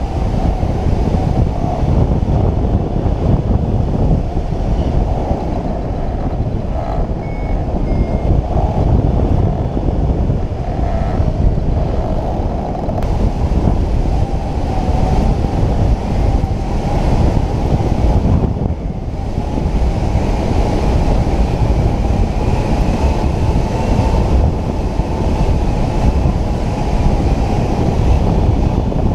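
Steady, low rush of wind buffeting the microphone of a camera on a hang glider in flight.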